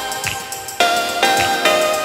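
Background music: a melody of plucked notes that start sharply and fade, a new note every half second or so.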